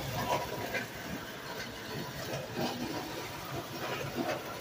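Prewar Lionel toy train running on three-rail tinplate track: a steady rumbling rattle of metal wheels on the rails, with fast irregular clicking.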